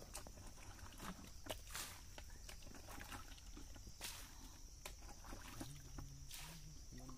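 Hands groping and digging in wet mud and leaf litter: scattered squelches, small splashes and rustles, three of them louder, over a steady high-pitched whine.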